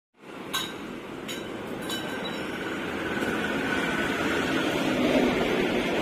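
Steady outdoor traffic noise, with a few sharp clicks in the first two seconds.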